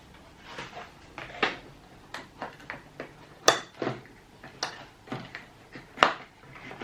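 Irregular clicks and clinks of small metal bicycle parts and tools being handled and set down on a hard surface, with sharper knocks about three and a half seconds and six seconds in.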